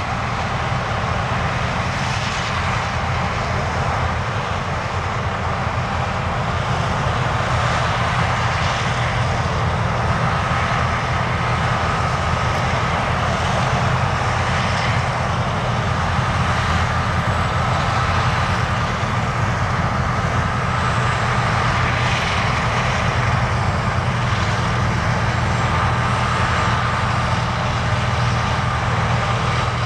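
John Deere combine harvester running steadily while harvesting wheat: a continuous engine drone with a faint steady high whine over it.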